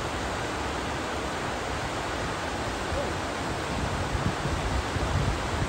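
Waterfall pouring: a steady, even rush of falling water, with a few low bumps near the end.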